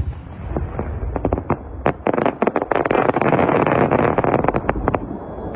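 12-inch twinkling kamuro crossette display shell bursting with a sharp bang, followed by a dense run of pops and cracks as the crossette stars split. The pops are thickest two to four seconds in and thin out near the end.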